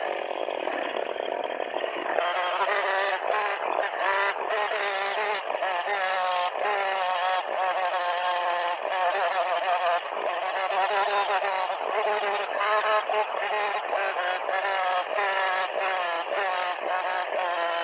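Chainsaw engine running under cutting load while carving wood, its pitch rising and falling quickly and continually, with many abrupt breaks, as in fast-forwarded footage.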